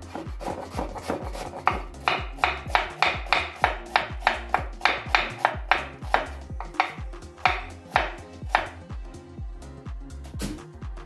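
Chef's knife dicing an onion on a wooden cutting board: quick, even strokes of the blade against the board, about three a second, thinning out near the end. Background music with a steady beat runs underneath.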